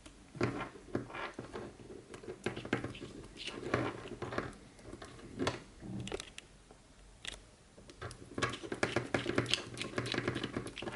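Small 3D-printed plastic frame parts of a micro quadcopter being handled and pushed together by hand: irregular clicks, taps and scraping, coming in clusters with short pauses between.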